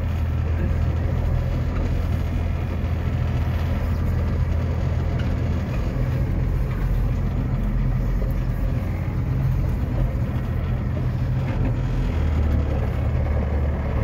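Pickup truck engine and road noise heard from inside the cab: a steady low rumble under an even hiss.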